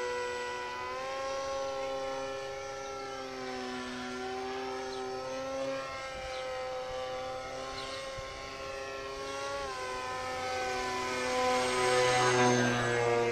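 Motor and propeller of a depron-foam radio-controlled model plane droning steadily in flight. The pitch rises about a second in and drops again near ten seconds as the throttle changes, and the sound grows louder and rougher near the end.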